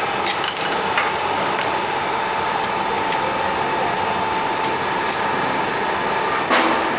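Automatic shaft-turning lathe running with a steady machine hum and a constant tone, with a few short metallic clinks about a second in and a louder metallic clank near the end.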